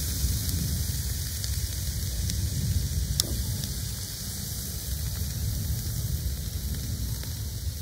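Meat sizzling on a hot grill, a steady hiss over a low steady rumble, with a sharp click about three seconds in as tongs turn the meat.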